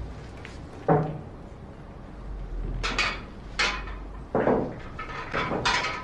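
Pool balls clacking at a billiard table: a series of sharp knocks, the loudest about a second in.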